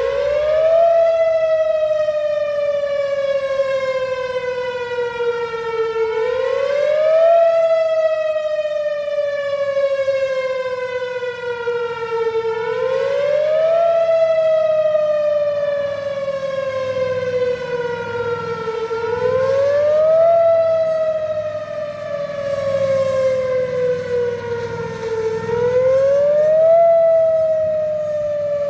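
Outdoor tornado warning siren sounding a test wail: its pitch rises quickly, then sinks slowly, over and over, peaking about every six and a half seconds.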